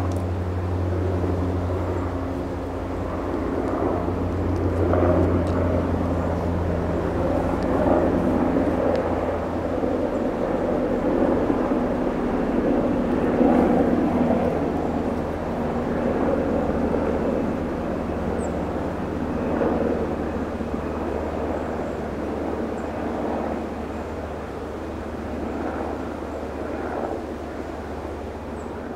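A steady engine drone: a low, even hum with overtones under a fluctuating rushing layer, fading away at the very end.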